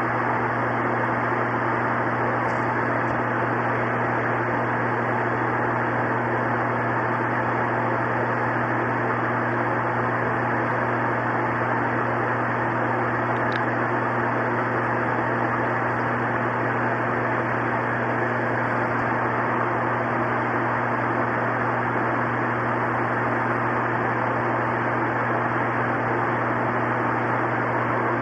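Steady hiss with a low hum underneath, unchanging.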